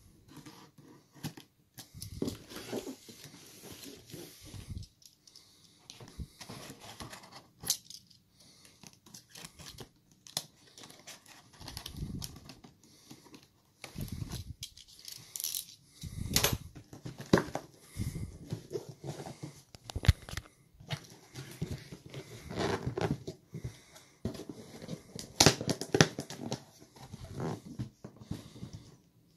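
A cardboard shipping box being cut open and handled: a utility knife scraping through packing tape, then cardboard flaps tearing and rustling in irregular scrapes and crackles.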